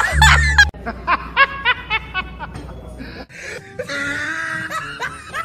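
A woman laughing in a run of short ha-ha bursts that fade away, over background music.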